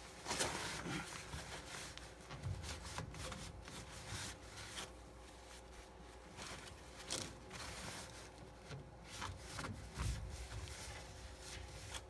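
A wad of towel rustling and rubbing against the plastic drain pump filter housing of a Whirlpool Duet washer as gunk is wiped out of it, in irregular scrapes and crinkles, loudest about half a second in.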